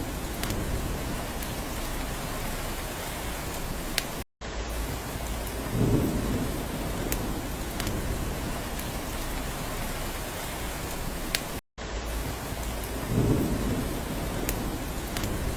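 Steady rain, with a few sharp drip ticks and a low rumble of thunder swelling twice, about six and thirteen seconds in. The sound cuts out briefly twice, about four seconds in and near twelve seconds.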